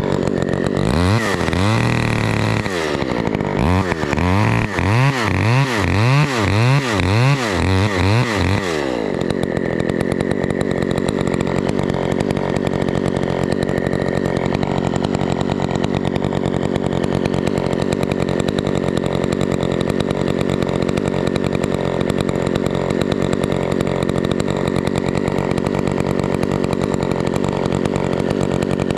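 Chainsaw engine revved up and down over and over, about once a second, then settling to a steady idle about nine seconds in.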